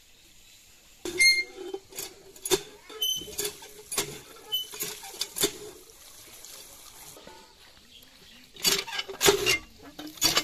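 Cast-iron hand pump being worked, its handle squeaking and clanking in strokes about one to two a second, starting about a second in, with water splashing onto Malabar spinach (pui shak) leaves in a plastic colander.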